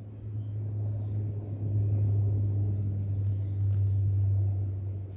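Low, steady rumble that grows a little louder about two seconds in.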